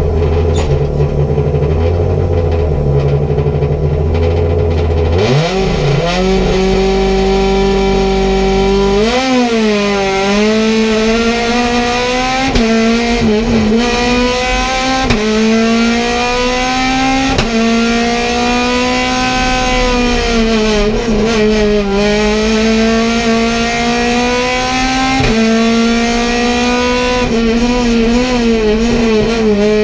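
Race car engine heard from inside the cockpit: idling low for about five seconds, then revved hard for the launch and held at high revs up the hill, its pitch dipping and climbing again several times.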